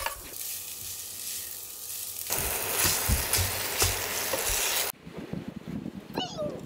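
Ground beef and onion sizzling in a frying pan while being stirred. The sizzle gets louder about two seconds in and cuts off suddenly near the end.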